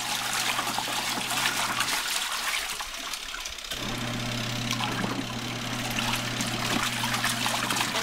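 Panda compact portable washing machine's wash tub agitating sheets, with a steady motor hum and swirling, sloshing water. About two seconds in the motor stops. It starts again nearly two seconds later as the agitator reverses direction.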